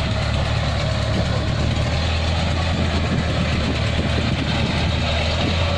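Diesel engine of Kubota harvesting machinery running steadily, its low hum firming up about two seconds in.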